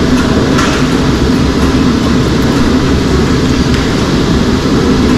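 Loud, steady mechanical rumble with a deep hum, running evenly throughout.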